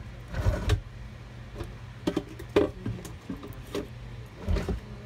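Handling noise from fingers moving a thin gold chain and hoop earrings close to a phone microphone: about six irregular soft bumps and rubs over a steady low hum.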